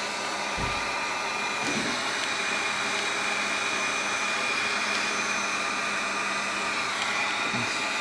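Wagner electric heat gun running steadily, its fan blowing hot air to shrink heat-shrink tubing over a wire.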